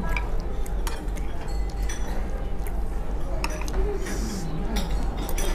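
Metal fork and spoon clinking and scraping on a ceramic plate while eating, a scattering of sharp clinks spread through, over a steady low hum.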